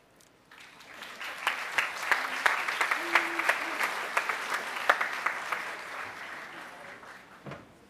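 Audience applauding, many overlapping claps that build up about half a second in and die away near the end.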